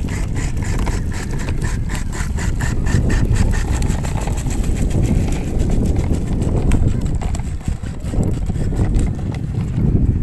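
Wind buffeting the microphone with a steady low rumble. Over it, a quick, even run of soft ticks that fades out about halfway through.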